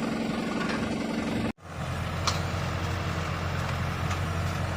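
Farm tractor engine running steadily while ploughing. The sound cuts out abruptly for a moment about one and a half seconds in, then the engine is heard again with a deeper hum.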